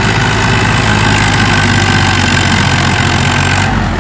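HMT 3511 tractor's three-cylinder diesel engine running steadily under load while pulling a super seeder through paddy stubble. The engine note shifts slightly near the end.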